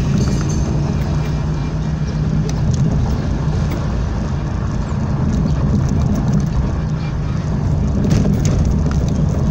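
Car engine and tyre noise heard from inside a moving car's cabin, a steady low drone.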